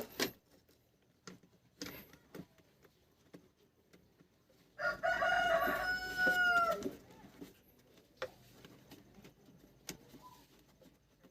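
A rooster crowing once, one drawn-out call of about two seconds starting about five seconds in. A few light clicks and taps come before and after it.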